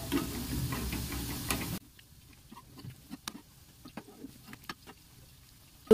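Spinach kofta balls deep-frying in a kadhai of hot oil, sizzling as a steel spatula turns them. About two seconds in the sizzle cuts off abruptly, leaving only faint scattered ticks.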